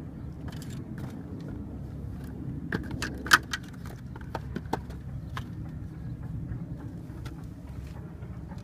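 Small metallic clicks and clinks of tools and wire connectors being handled, a cluster of them in the middle with one sharp click a little over three seconds in. A steady low rumble runs underneath.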